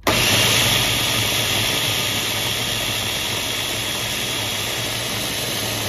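Electric food chopper motor switching on suddenly and running steadily, its blade whirring through a wet mango chutney mix. A steady low motor hum sits under a wash of noise from the churning liquid and pulp.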